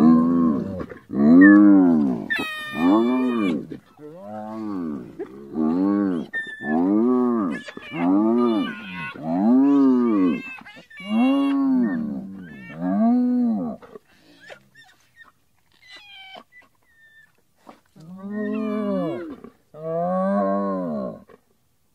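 Spotted hyena calling: a series of drawn-out low calls, each rising and then falling in pitch, about one a second, with a higher wavering call in among the first few. After a pause of about four seconds come two more calls.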